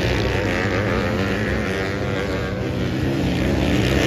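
Motocross sidecar outfits' engines revving hard as they climb a dirt hill, one outfit passing and another following close behind.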